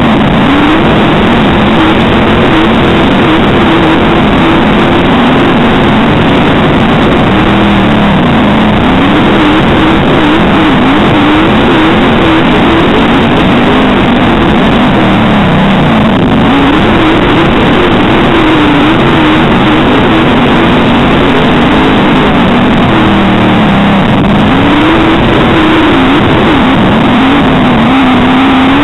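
Dirt-track modified race car's V8 engine at racing speed, heard loud from on board the car. Its pitch climbs and dips again every several seconds as the car works around the oval.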